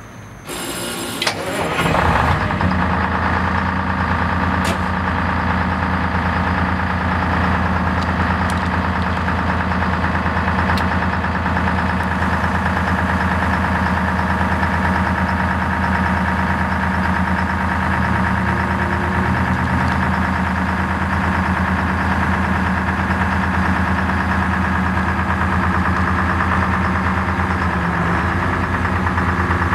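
The 1979 P&H 430 ATC truck crane's chassis engine is cranked and catches within about the first two seconds, then idles steadily.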